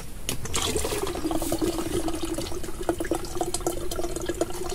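Coconut water pouring from a freshly opened green coconut into a plastic pitcher: a steady liquid stream with a low ringing tone.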